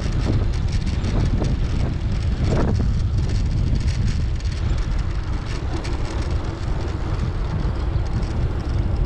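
Steady wind noise rumbling on the microphone of a moving bicycle.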